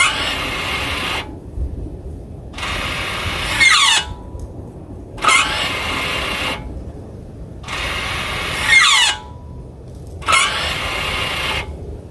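Toyota Corolla Cross electric parking brake being applied and released over and over: the actuator motor whirs for about a second and a half each time, and a sharp, short squeak ('kyu') sounds at the end of applying, as the pads clamp, and again at the start of releasing. The owner takes the motor whir to be normal and traces the squeak to the pads clamping; the dealer proposed replacing the actuator, and in similar cases a caliper replacement cured it.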